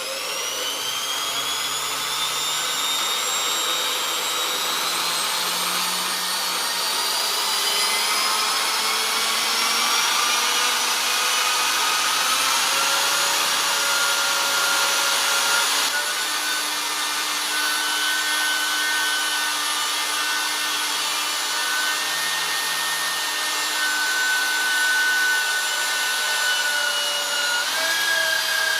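A high machine whine that rises in pitch over the first few seconds, then runs on steadily with a few held tones, like a small electric motor in a power tool.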